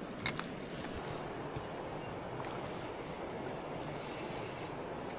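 Steady rushing of a flowing river, with a few sharp clicks in the first couple of seconds and a brighter hiss that stops shortly before the end.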